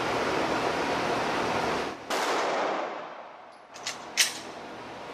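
Two sharp pistol-shot cracks about a third of a second apart, near the end, the second louder, over a steady hiss of ventilation noise that cuts out and fades just before them. The shots are muffled and clipped, as a phone records loud gunfire at an indoor range.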